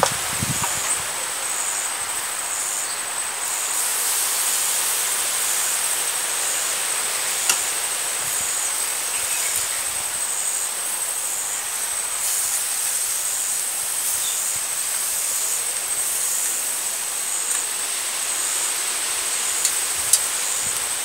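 Chicken legs sizzling on a charcoal grill, a steady hiss, with a couple of light metallic clicks, the last as tongs reach onto the grate near the end.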